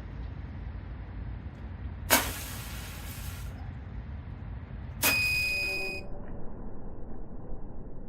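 Live rocket igniters firing from an avionics bay: a sharp pop and about a second and a half of hiss about two seconds in, then another pop about five seconds in, joined by a steady high beep from the flight computer lasting about a second.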